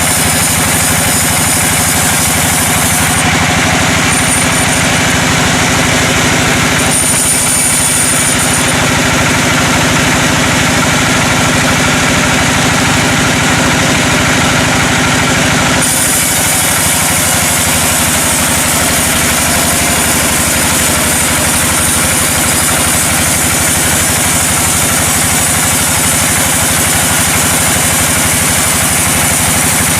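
Sawmill machinery running steadily on an engine, a loud continuous drone with a low hum. Its sound shifts a few times, about three, seven and sixteen seconds in.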